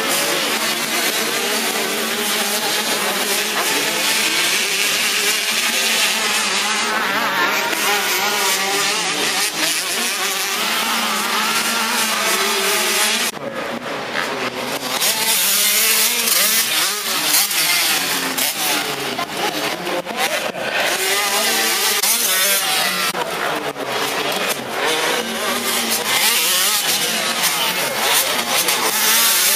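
85 cc two-stroke motocross bikes racing, several engines revving up and down as riders pass and climb. The sound drops briefly about thirteen seconds in, then returns louder and closer.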